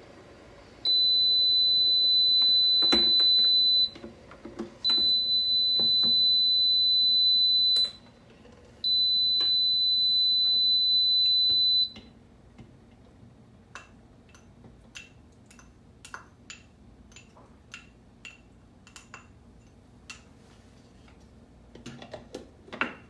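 Tommee Tippee baby food maker giving three long, high beeps of about three seconds each, a second apart: the alert that its steaming cycle has finished. Then light clicks about twice a second as a utensil taps against the jug, and a short clatter near the end.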